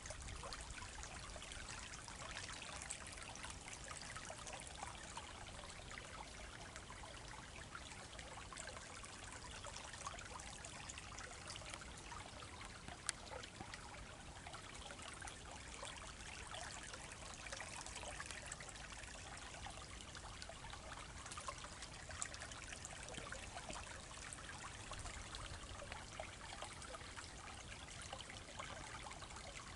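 Small, slow-flowing stream trickling steadily, with one sharp click partway through.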